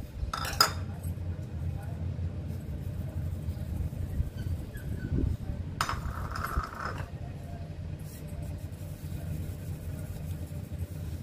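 Whole spice seeds poured from small bowls into a plastic grinder jar: a short rattle about half a second in and a longer rustling pour around six seconds in, over a steady low hum.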